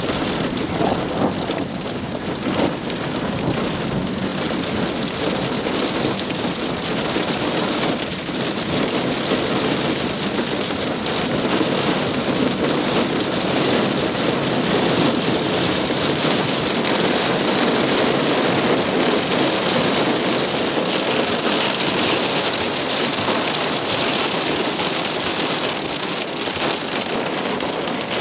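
A dense shower of small hail and graupel from a thunderstorm cell pelting down, a steady heavy patter that grows a little louder in the middle.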